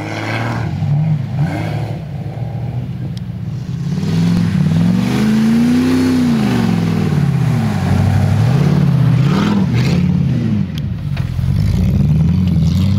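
An off-road 4x4's engine revving up and down again and again, its pitch climbing and falling every second or two as the throttle is worked.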